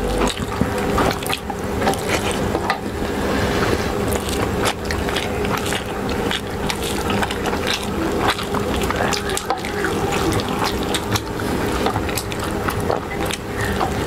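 Hands squeezing and mixing rice with curry gravy on steel plates, and mouths chewing, close to lapel microphones: a dense, continuous run of wet squelching and smacking clicks.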